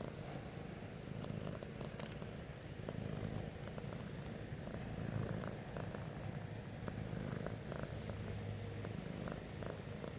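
Domestic cat purring steadily, with faint scattered clicks over the purr.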